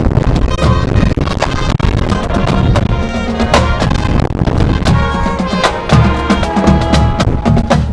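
High school marching band playing: held chords over a busy drum line with frequent strikes.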